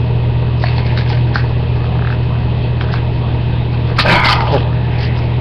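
A steady low hum underneath, with a few light clicks and a short scraping rustle about four seconds in as the plastic parts of a confetti popper are handled and twisted to line up.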